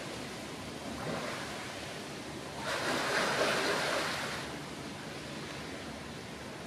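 Polar bear splashing in a pool: a loud burst of splashing water lasting about two seconds in the middle as it rolls and thrashes. A steady hiss runs underneath.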